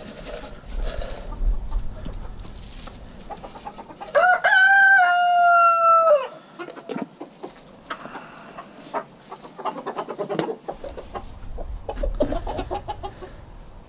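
A rooster crows once, a single loud crow lasting about two seconds starting about four seconds in, rising at the start and then held, sagging slightly at the end. Scattered light knocks and rustling come before and after it.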